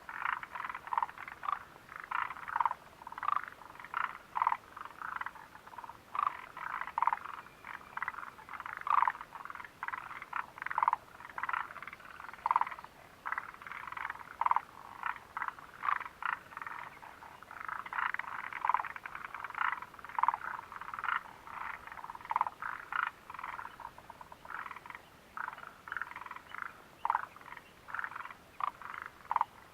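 A chorus of frogs calling: many short croaks from several frogs overlapping, several a second, without a break.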